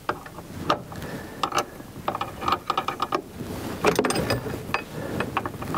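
Steel wrenches clicking and clinking against the jam nut and tension bolt on a snowmobile's chain case as the jam nut is loosened to adjust chain tension: a run of short, irregular metal clicks, some ringing briefly.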